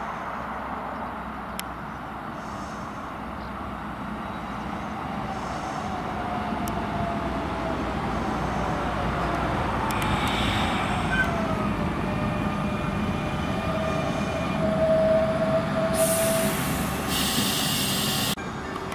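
CP series 2240 electric multiple unit running in and braking to a stop: rumbling wheels and a whine that falls in pitch as it slows, then a steady whine. Near the end comes a loud burst of air hiss as it halts.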